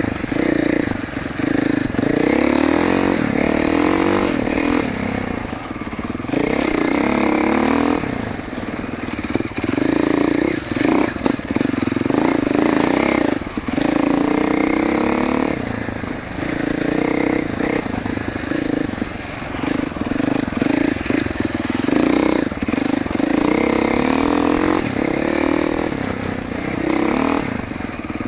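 2021 GasGas MC450F's 450cc single-cylinder four-stroke engine being ridden hard off-road, revving up and easing off every few seconds as the throttle is worked. Occasional knocks from the bike over the rough track.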